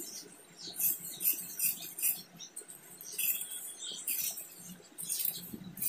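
Steel tailoring scissors cutting through layered cotton fabric along a marked curve: a run of short, crisp snips at irregular intervals, with small pauses between them.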